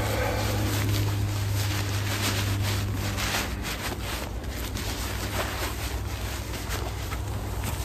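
Camouflage netting rustling and scraping as it is stuffed by hand into a fabric bag, with irregular crinkling throughout. Wind rumbles low on the microphone underneath.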